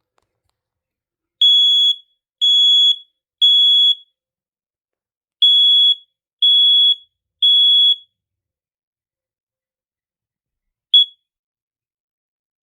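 Kidde 20SD10 10-year-battery smoke alarm sounding its self-test: two rounds of three loud, high-pitched beeps, the temporal-three evacuation pattern, then a single short chirp near the end.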